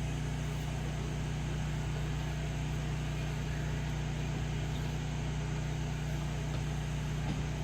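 Steady low engine hum with a constant pitch and no change in speed.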